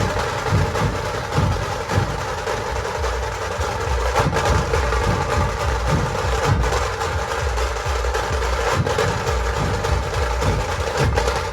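Dhol-tasha ensemble playing: deep, dense dhol drum beats under a continuous rapid rolling of tasha drums. A sharp accented stroke cuts through about every two and a half seconds.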